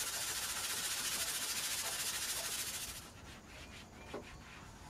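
Sandpaper rubbed by hand over the patched ABS plastic camper ceiling: a steady rasping for about three seconds that stops suddenly, then a few softer strokes and a light click.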